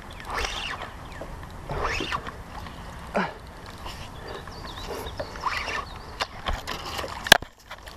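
Kayak paddle strokes: a swish and splash of the blade in the water every second or two, with one sharp knock near the end.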